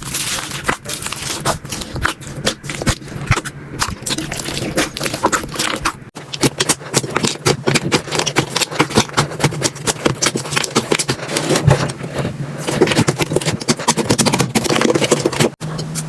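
Slime being squeezed, poked and stretched by hand, giving a dense run of fast crackles and pops, with a brief break about six seconds in.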